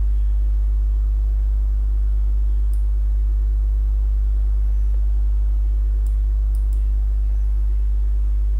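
Steady low electrical mains hum. A few faint clicks come about three seconds in and again three times around six to seven seconds, like computer mouse clicks.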